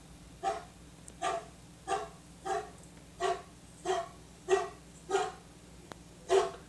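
Large dog barking in a steady rhythm, about ten single barks, roughly one every two-thirds of a second.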